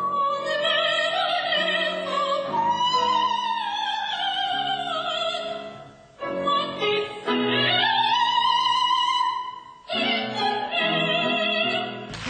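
A woman singing opera in a high voice, long held notes with vibrato, in three phrases with brief breaks between them.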